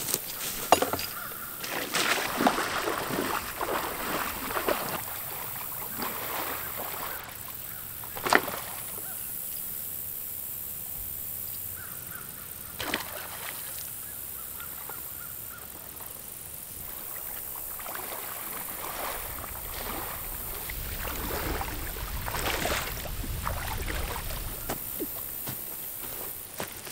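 Water sloshing and splashing as a person wades through a shallow pond and back out, with a few sharp knocks along the way.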